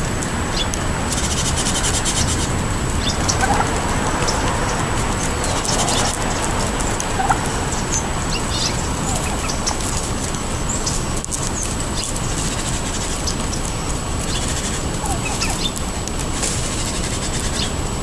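Wild turkeys pecking birdseed off pavement: many short, irregular beak taps, with a few brief soft turkey calls, over a steady background hiss.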